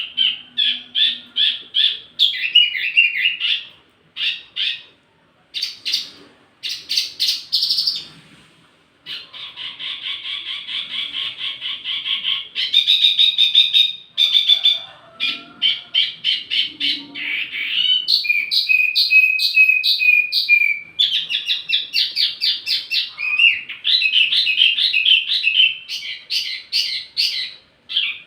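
A wambi mini songbird singing a long, varied song of rapid chirped phrases and trills, with a buzzy trill about ten seconds in and a drawn-out whistle a little later, broken by a few short pauses.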